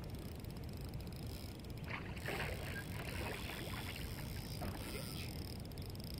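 Spinning reel being worked in short spurts against a hooked musky, a flurry of small clicks and rustles about two seconds in, over water sloshing and a steady low rumble.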